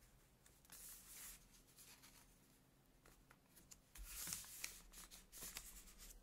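Sheets of paper being handled and shifted: a soft rustle about a second in, then from about four seconds in a quick run of light paper rustles and small taps.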